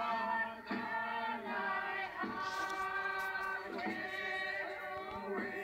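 A group of voices singing a traditional Tlingit song in long held notes, a new phrase starting about every second and a half, heard through a television speaker.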